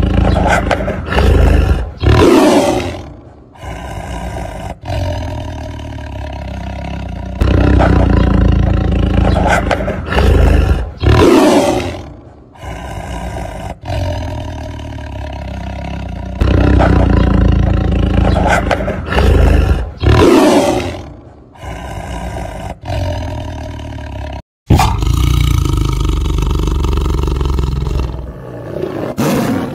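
A large animal roaring: a loud run of roars that repeats three times, about every eight seconds. After a brief break near the end, a different stretch of roaring follows.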